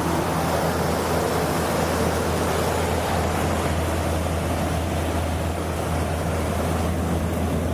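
Air-to-water heat pump running: a steady low hum under an even rushing noise.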